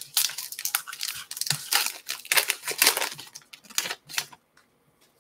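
A baseball card pack's wrapper being torn open and peeled off the stack of cards: dense crinkling and tearing that stops about four seconds in.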